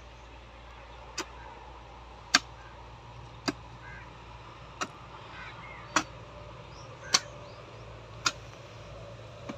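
Steel hoe (mattock) chopping into hard-packed soil in a pit, eight sharp, evenly spaced strikes a little more than a second apart.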